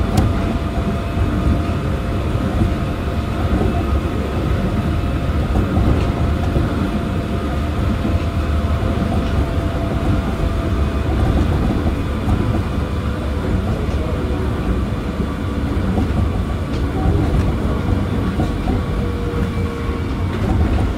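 Osaka Monorail 1000-series straddle-type monorail car running along its guideway, heard from inside the car: a steady rumble from the rubber-tyred running gear, with faint steady whining tones from the field-chopper-controlled traction equipment.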